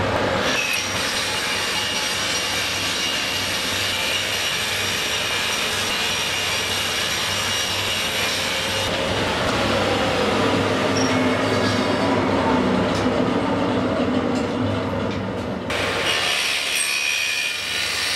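Table saw running and cutting rings from a thin plywood drum shell as the shell is rolled on a jig over the blade: a steady motor hum under a high cutting whine. The high cutting noise drops away about halfway through, leaving lower sliding tones, and comes back a couple of seconds before the end.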